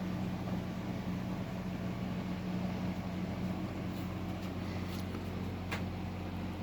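1998 Windmere 52-inch ceiling fan running steadily: a low motor hum under the rush of moving air, with a light click near the end.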